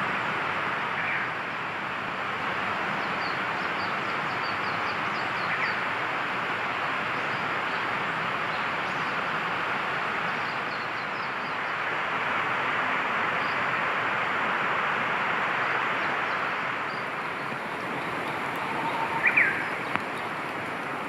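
Steady rushing noise with faint, scattered bird chirps over it, and a short, louder bird call near the end.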